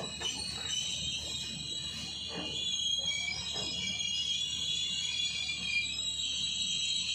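Passenger train slowing into a station, its brakes giving a high-pitched squeal of several wavering tones over a low running rumble.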